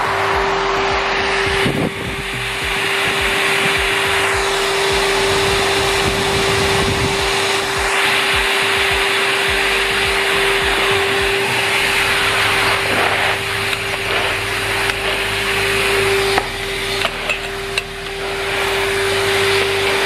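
Numatic Henry Wash wet-and-dry vacuum cleaner running steadily: a constant motor tone over a rushing airflow noise. A few brief knocks near the end.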